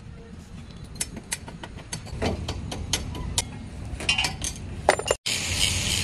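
Scattered sharp metallic clinks and taps of tools on steel parts over a steady low rumble. Just after five seconds in the sound cuts off abruptly and a loud steady hiss begins.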